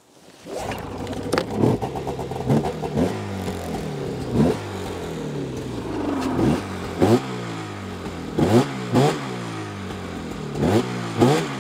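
A 2024 Arctic Cat Catalyst Riot 600's C-TEC2 600 two-stroke twin snowmobile engine starting on the key just after the start, then idling and being revved in about ten short throttle blips that rise and fall back to idle, with a nice brap.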